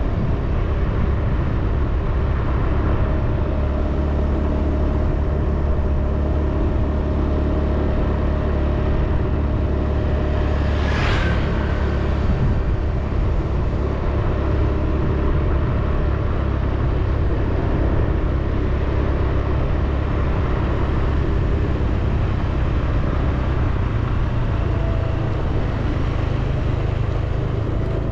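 Steady low rumble of a vehicle driving along a paved road, with road noise filling the sound throughout. There is one brief, higher sound about eleven seconds in.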